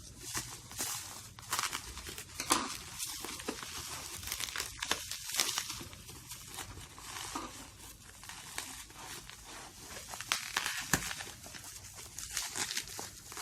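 Packaging being crinkled, rustled and torn by hand as a parcel is unwrapped, with a continuous run of irregular crackles and a few sharper snaps.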